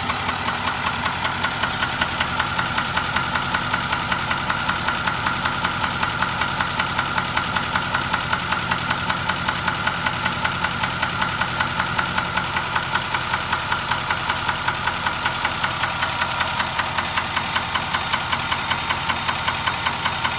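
Nissan Titan XD's V8 engine running steadily with a regular, evenly spaced knock, a fault that showed up at about 13,000 miles.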